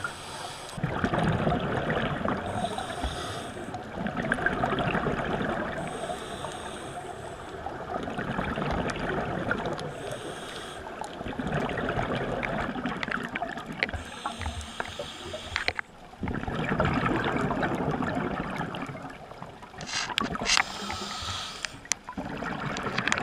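A scuba diver's regulator breathing underwater: long rushes of exhaled bubbles alternating with shorter, higher hissing inhalations, about one breath every four to five seconds.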